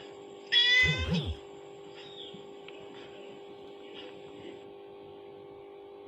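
A cat gives a single loud meow about half a second in, lasting just under a second, over a faint steady hum.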